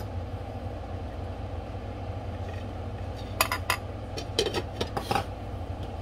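Glass pot lid clinking against a stainless steel pot as it is lifted off and set back on, a few sharp clinks about three and a half seconds in and again near five seconds, over a steady low hum.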